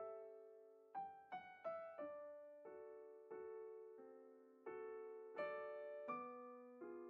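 Slow, soft solo piano music: single notes and small chords struck about once a second, each left to ring and fade.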